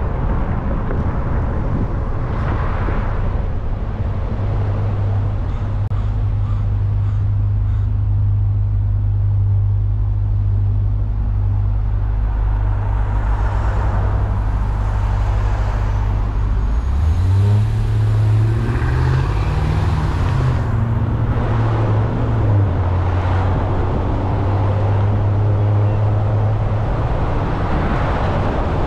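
Car engine and road noise: a steady low hum while held in traffic, then a little past halfway the engine note rises in steps as the car pulls away and accelerates, before settling back to a steady cruise.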